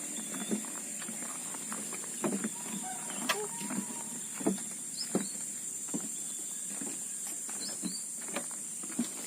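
Irregular footsteps and scuffs on a path, over a steady high-pitched hiss, with a few short high chirps.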